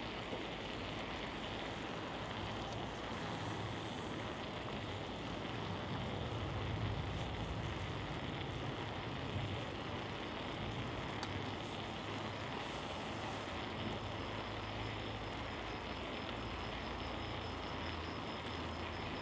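Steady street and riding noise picked up on a moving bicycle: a low rumble under a broad hiss, swelling slightly about seven seconds in, with a few light clicks.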